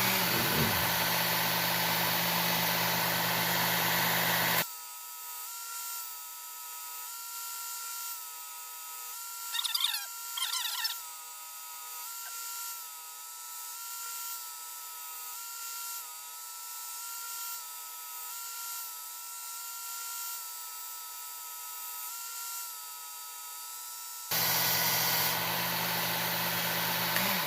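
Work Sharp Ken Onion belt sharpener running, its abrasive belt grinding a knife's bevel. The grinding is loud for about the first five seconds and again near the end, with a quieter, steady whine in between.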